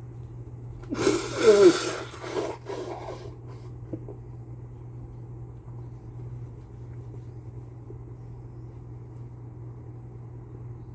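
A person with a cold sneezing once, loudly, about a second in, followed by a shorter noisy breath.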